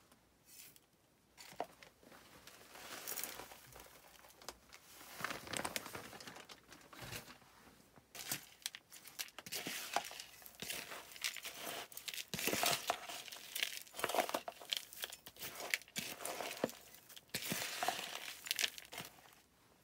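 Coarse potting mix of bark chips and zeolite granules being tipped and stirred in a plastic bowl with a metal garden trowel: irregular bursts of gritty rustling and crunching with small clicks of grains and chips against the plastic.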